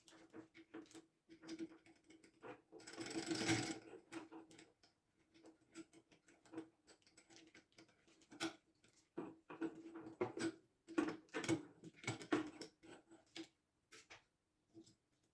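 Small metal clicks and taps of stripped air rifle parts being handled and worked loose by hand, irregular throughout, with a short scraping rustle about three seconds in.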